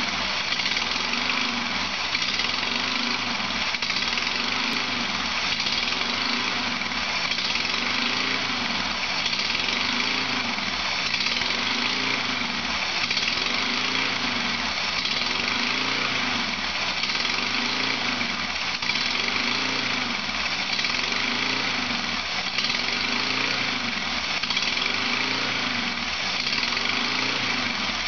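1999 Honda Accord's four-cylinder engine idling steadily, with a slow, even pulse in the low end.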